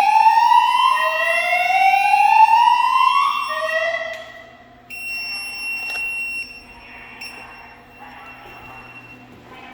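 Silent Knight 6820EVS emergency voice system sounding its whoop tone through the building speakers: loud rising sweeps of about two seconds each, one after another, cut off abruptly about four seconds in. After that only a much quieter steady high tone and faint hiss remain.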